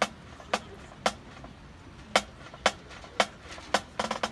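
Sharp wooden clicks keeping a steady tempo, about two a second, then a quick flurry of clicks near the end, typical of sticks clicked together to set the tempo in a marching band warm-up.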